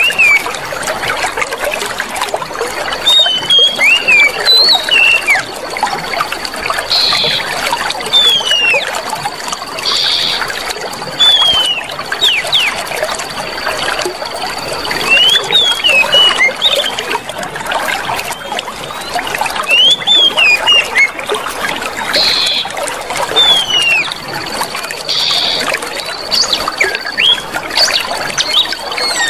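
Clear water trickling and running steadily, with small birds chirping in short rising and falling calls over it. A thin, high, steady tone comes and goes behind the chirps.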